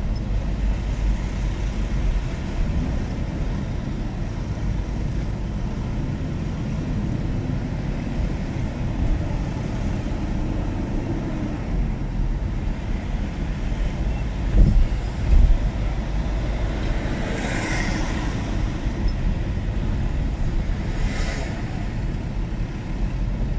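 Car driving: a steady low rumble of road and engine noise. Two brief rushes of noise swell up and fade away past the middle.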